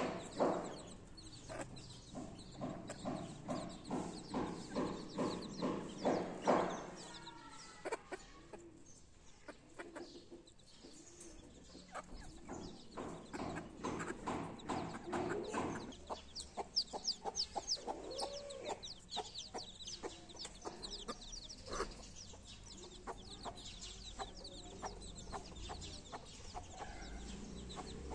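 Mother hen clucking in a steady run of short clucks, about two a second, while her chicks peep high and thin, most thickly a little past the middle.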